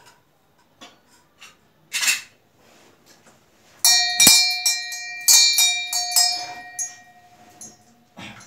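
Hanging temple bell rung by hand, struck about eight times in quick succession starting about four seconds in, its ringing tone dying away near the end. Before it, light clinks of metal puja vessels and a short rustle about two seconds in.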